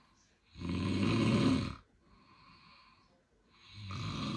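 A man snoring in his sleep: two long snores about three seconds apart, the first louder, with a faint breath between them.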